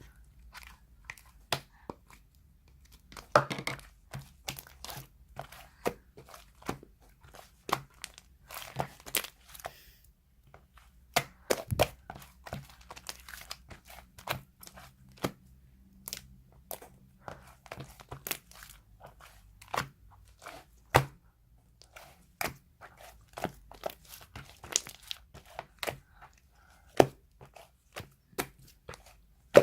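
Slime being squeezed, poked and stretched by hand, giving irregular sharp clicks, pops and crackles, several per second.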